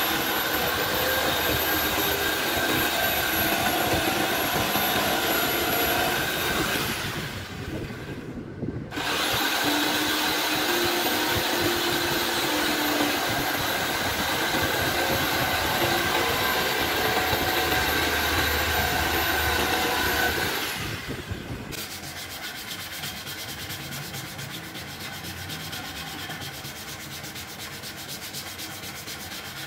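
Electric jigsaw cutting a willow cricket bat blank, its motor dropping away for a moment about seven seconds in, then cutting on until it stops about twenty-one seconds in. After that, a hand file rubs across the wood in quick back-and-forth strokes, quieter than the saw.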